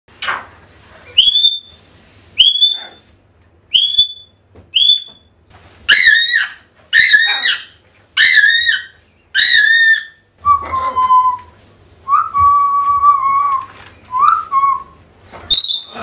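African grey parrot calling: a run of short, rising whistles about a second apart, then a few longer, lower whistles near the end, one of them held steady.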